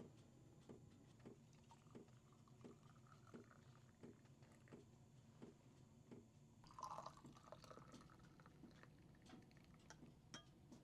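Faint sounds of herbal tea being poured and dripping, with soft regular ticks about every two-thirds of a second and a brief louder sound about seven seconds in.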